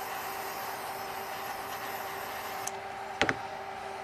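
Two quick, sharp clicks from hands working thin wires into the orange plastic bus bar holder of a hybrid battery sensing harness, over a steady hiss and a faint two-note hum. The hiss drops off sharply just before the clicks.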